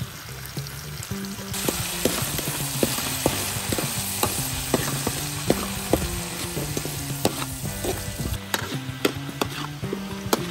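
Chopped garlic and chili with a dark sauce sizzling in hot oil in a steel wok, stirred with a metal spatula that scrapes and clicks against the pan. The sizzle grows louder about a second and a half in.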